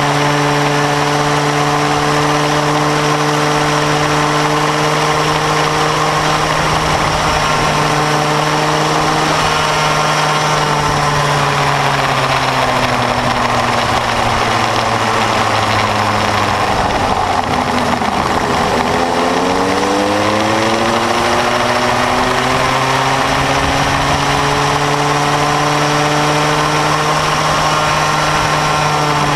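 Bambino go-kart engine, close to an onboard microphone, running at a steady high pitch. About halfway through the revs fall for several seconds as the kart slows, then climb back to the same steady pitch as it accelerates away.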